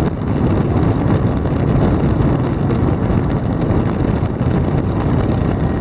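Helicopter in flight, heard from inside the cabin: a steady, loud rush of rotor and engine noise mixed with wind on the microphone.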